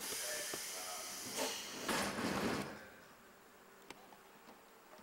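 Locomotive whistle of the express train Myōjō sounding: a hissing, shrill blast, loudest about two seconds in, that cuts off just before three seconds.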